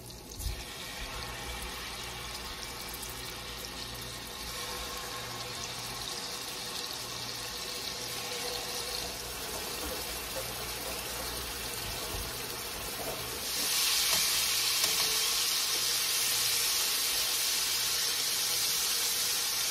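Chicken tenders sizzling as they fry in butter and olive oil in a skillet, a steady hiss that turns clearly louder about two-thirds of the way through.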